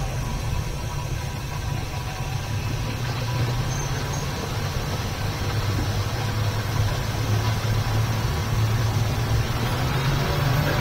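A tired small-block Chevy 350 V8 in a 1971 GMC truck idling steadily.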